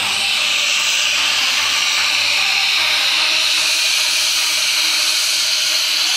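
Pressurised gas jets blasting white plumes, making a loud, steady hiss.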